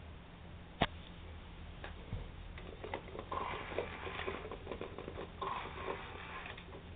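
Toy robot cat being stroked on its plastic back: a sharp click about a second in, then short sounds from the toy coming back about every two seconds, over the light rubbing and patting of the hand.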